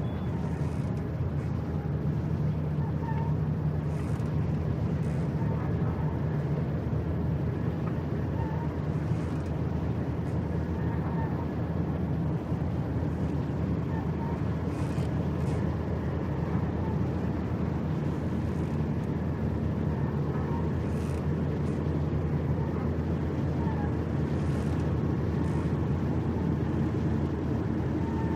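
Fishing port ambience: a steady low engine rumble, with faint short chirps and an occasional faint knock now and then.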